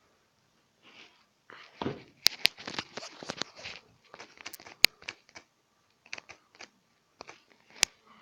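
Handling noise from a phone held close to its microphone: sharp fingernail clicks and taps with short rustles, thickest in the first half and with a last click near the end.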